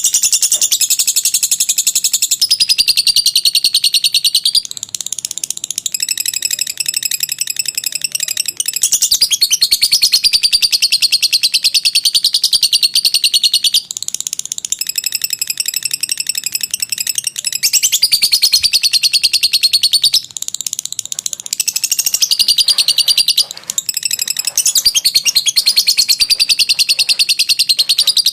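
Lovebird singing its long 'ngekek' chatter: loud runs of very rapid, high-pitched chattering, each lasting a few seconds, with brief breaks between about seven runs.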